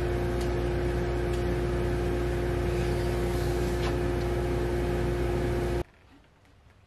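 Steady hum of a woodshop machine running, with one clear pitched tone over a low drone, cutting off abruptly about six seconds in; a few faint clicks follow.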